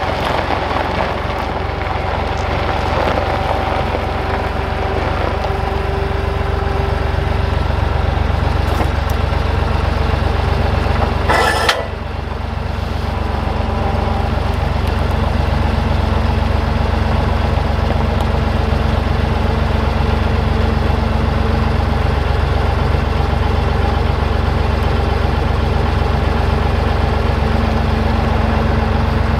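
Skid steer engine idling steadily, with a brief clatter about twelve seconds in as sawn boards are stacked on its forks.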